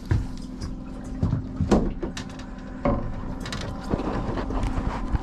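A few sharp knocks and thumps of handling in a boat, over the steady hum of the boat's motor.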